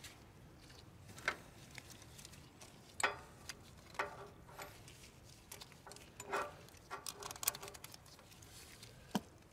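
Scattered light clicks and taps of hand-tool work, with a quicker run of clicks about seven seconds in, as a wrench puts a 10 mm bolt back in on a compact tractor's fuel filter mount.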